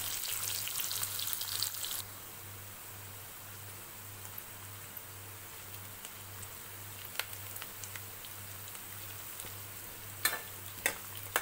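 Chopped onion and green chillies sizzling in hot oil in a kadhai as a spatula stirs them: louder with scraping for the first two seconds, then a steady, quieter sizzle, with a few sharp clicks near the end.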